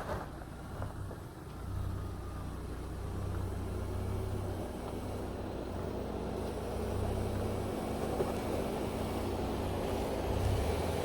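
Jeep Gladiator Rubicon's engine running at low revs during a rock crawl, a steady low rumble that grows gradually louder toward the end.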